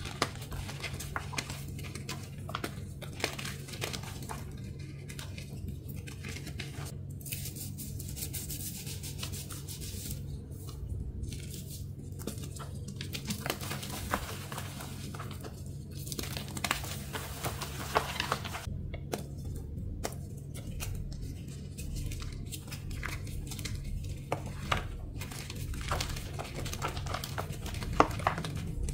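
Thin blocks of reformed gym chalk being crushed and crumbled, a long run of irregular crunchy crackles. A steady low hum runs underneath.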